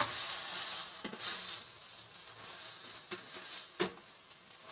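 Metal spatula stirring chopped dill leaves in a metal kadhai: a scraping rustle, loudest in the first second and a half, with a few light knocks of the spatula against the pan.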